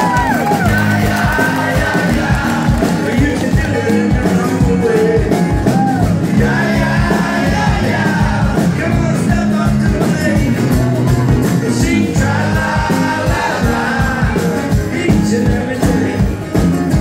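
Live acoustic band: strummed acoustic guitars over electric bass, with a man singing the lead vocal.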